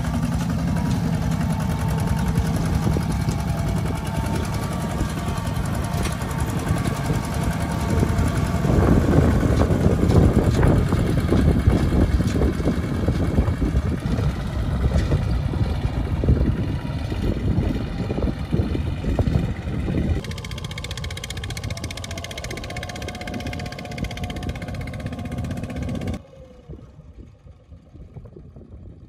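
Single-cylinder diesel engines of two-wheel walking tractors running under load as they pull loaded trailers through mud. Near the end the sound drops suddenly to a quieter engine.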